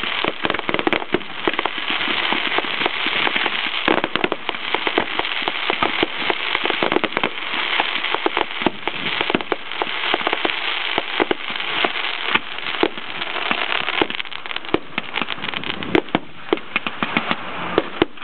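Aerial fireworks bursting in a dense, continuous stream of rapid pops and crackles. The crackle thins out into separate sharp pops in the last few seconds.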